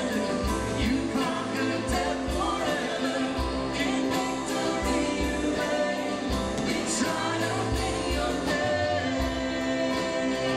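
A church worship song: singing over a band with a bass line and a steady drum beat.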